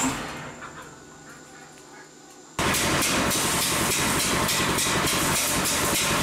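Homemade rice threshing machine running, its wire-mesh drum spinning with a loud, dense, steady rattling whir. A quieter stretch with only a faint hum comes first, and the loud running noise cuts in abruptly about two and a half seconds in.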